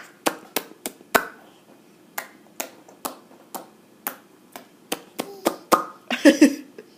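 A young child making mouth noises: a string of about fifteen sharp tongue clicks at an uneven pace, with a short vocal sound near the end.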